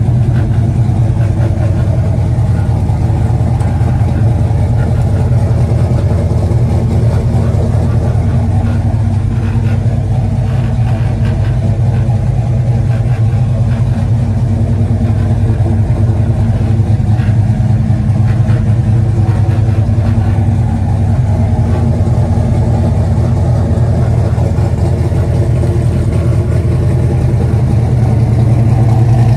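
1964 Chevrolet C10 panel truck's engine idling steadily, heard at the back of the truck near its exhaust.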